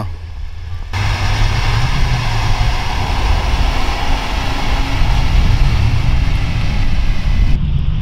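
Heavy snowplow dump truck driving past close by: a low engine rumble, joined about a second in by a loud, even rushing road noise that cuts off near the end.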